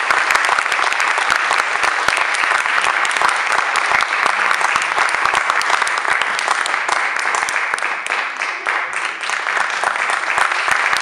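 Audience applauding steadily: dense, sustained clapping.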